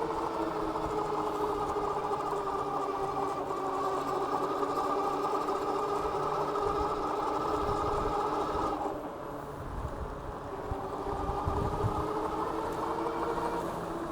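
Philodo H8 all-wheel-drive ebike's hub motors whining steadily under power, with wind rumbling on the microphone. The whine drops away about nine seconds in and comes back a couple of seconds later.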